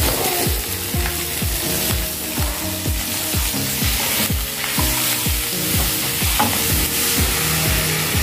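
Mustard greens frying and sizzling in hot oil with ground chilli-garlic paste in a non-stick pan, stirred and scraped with a wooden spatula. Background music with a steady beat runs underneath.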